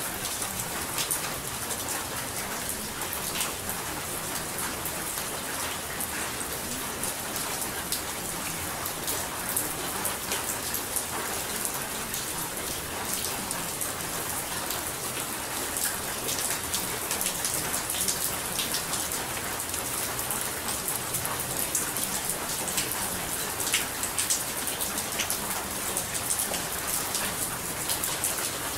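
Steady recorded rainfall, an even hiss with many small ticks of drops, used as the masking track of a subliminal audio.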